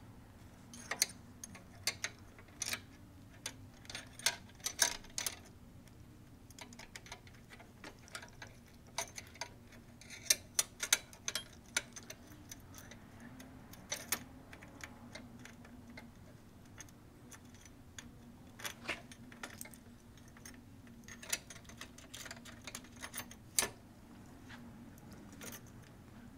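Small metal hardware and hand tools clicking and clinking against a scooter's metal rear rack while the trunk base is bolted on with nuts and washers: irregular sharp clicks, some in quick clusters.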